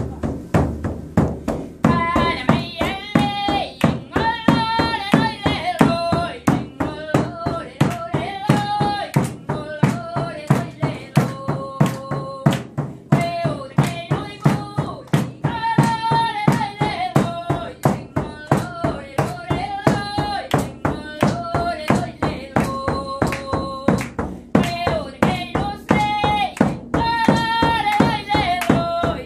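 A woman singing a traditional Sami joik, accompanied by a steady beat on a hand-held frame drum.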